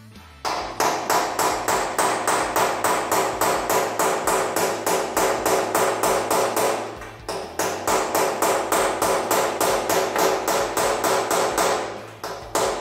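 Hammer striking the steel flange of a classic Mini body panel, dressing the metal: quick, even blows at about four a second, each with a metallic ring. The hammering breaks off briefly about seven seconds in and again near the end, then goes on.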